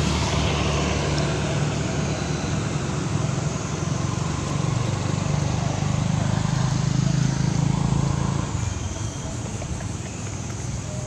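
Low, steady rumble of a motor vehicle engine that swells to its loudest around seven seconds and drops off sharply just after eight seconds in.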